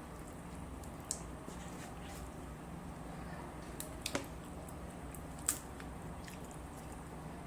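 Close-up mukbang eating sounds: soft wet chewing with a few sharp clicks, the loudest about two-thirds through, over a steady low hum.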